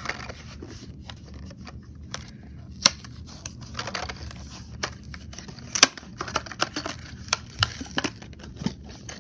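A Matchbox toy truck's clear plastic box with card backing being pried open by hand: scattered crinkles and crackles of plastic, with two sharp snaps about three and six seconds in, then a run of smaller clicks.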